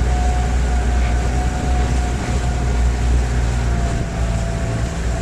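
Engine of a motorized outrigger boat (bangka) running steadily under way: a low drone with a constant whine above it, over the rush of water and wind.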